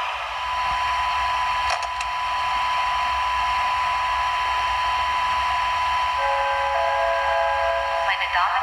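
Sound decoder of an H0-scale model electric locomotive playing its running sound through its small speaker: a steady hiss with a thin high whine. About six seconds in, a few more steady tones join it.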